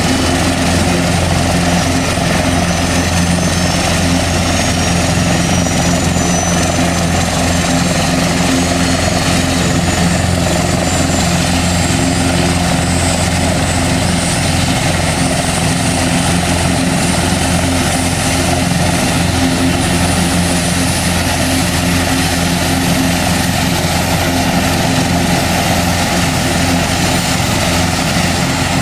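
Airbus H225 Super Puma helicopter starting up, its twin Safran Makila turboshaft engines running and main rotor turning. It makes a loud, steady drone with a high turbine whine that slowly rises in pitch.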